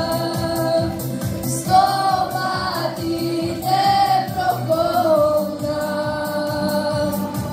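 School choir singing, with a girl soloist on a microphone. The voices hold long notes in phrases over an accompaniment with a steady beat.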